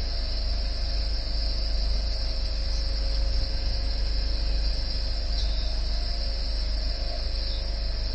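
Steady low rumble under a constant high hiss, with no distinct events.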